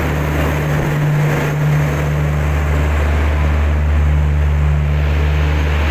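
Shatabdi Express passenger train moving past along a platform as it departs: a steady low drone from its generator power car over the rumble of the coaches.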